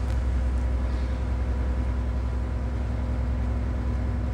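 A fishing boat's diesel engine running steadily, a deep even hum heard inside the wheelhouse.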